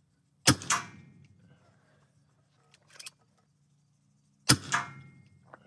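Two shots from an Evanix REX-P .357 PCP air pistol set up as a carbine, about four seconds apart. Each is a sharp crack followed a fraction of a second later by a second, smaller report. There are faint clicks between the shots.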